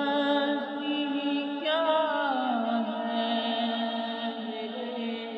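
Voice singing a naat without instruments, drawing out long held, ornamented notes with slow glides in pitch, over a steady lower hummed tone.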